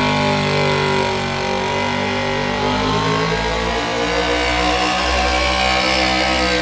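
Square-body pickup truck's engine running hard under full load while pulling a weight-transfer sled. The engine note holds fairly steady, with slight rises and falls in pitch.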